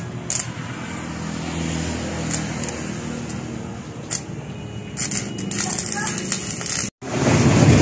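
Stick (arc) welding on a steel housing, crackling and sizzling, densest in the last couple of seconds before a sudden break. After the break, near the end, a louder steady machine noise.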